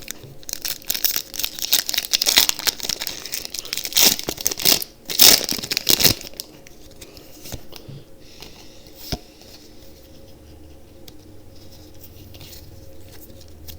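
Foil Pokémon booster pack wrapper being torn open and crinkled, loud for about six seconds, then dropping to faint rustling with a single click about nine seconds in.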